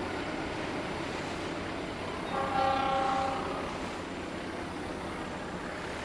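Train horn sounding one blast of about a second, a little over two seconds in. Under it runs the steady rolling noise of a train on the rails.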